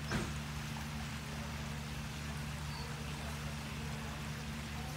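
Water splashing and churning steadily where a pool's inlet jet pours into the surface, over a steady low hum. A single short knock just after the start.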